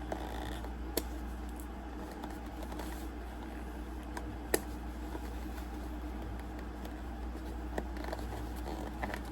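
Cardboard packaging being handled and pried open, with a few light clicks and taps, the sharpest about halfway through, over a steady low hum.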